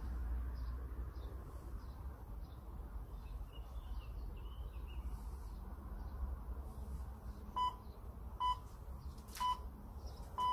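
Workout interval timer sounding three short beeps about a second apart, then a longer beep just as it ends: the countdown signal that a new round starts. Before the beeps, a low steady background rumble with faint bird chirps.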